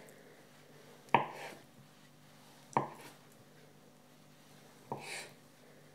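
Kitchen knife slicing a ball of mozzarella on a wooden cutting board: three sharp taps as the blade comes through onto the board, about a second and a half to two seconds apart, each trailing off briefly.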